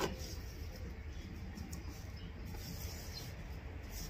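Faint scraping and rubbing of hands smoothing wet clay while shaping the mouth of a mud cooking stove (chulha).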